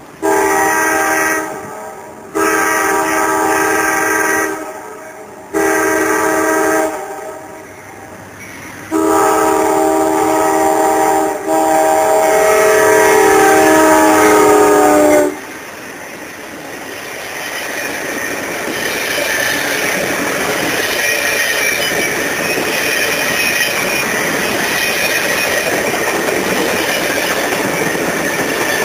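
An Amtrak GE P42DC diesel locomotive's air horn sounds a chord in four blasts, long, long, short, long: the crossing signal. The pitch drops slightly at the end of the last blast as the locomotive passes. Then the passenger cars roll by with a steady noise of wheels on rail that swells and holds.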